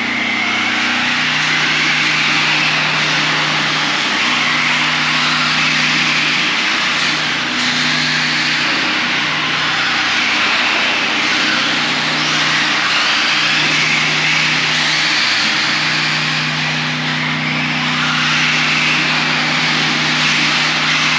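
Battery-powered RC cars racing on concrete, their electric motors whining up and down with the throttle over steady tyre noise, with a low hum that drops out and returns.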